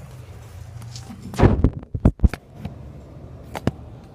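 A few knocks and thumps: a heavy thump about a second and a half in, two quick sharp knocks just after, and another sharp knock near the end.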